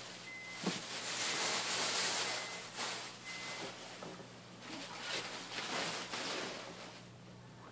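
Plastic bags and fleece cage liners rustling as they are lifted and moved about in a cardboard box, loudest in the first few seconds and dying away near the end.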